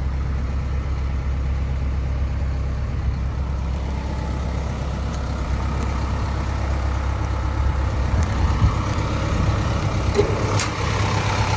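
Kobelco SK210LC-10 excavator's Hino diesel engine idling steadily with a low hum. Two sharp clicks come near the end.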